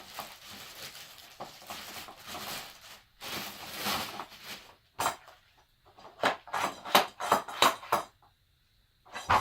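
Hard plastic parts of a kids' ride-on Jeep being handled and unpacked: rustling at first, then a quick run of clacks and knocks as pieces are set down and knocked together.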